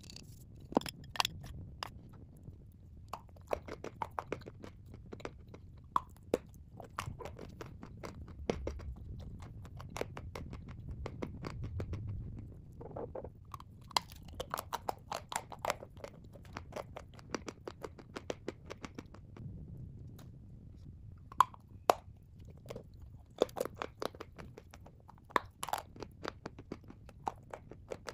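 Someone biting and chewing white chalk spread with clay paste: many dry, sharp crunches coming in clusters, with softer mouth sounds between them.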